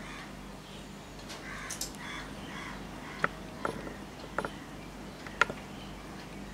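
Marker pen writing on a whiteboard: faint scratchy strokes, then several sharp taps as the pen meets the board, the loudest about five and a half seconds in.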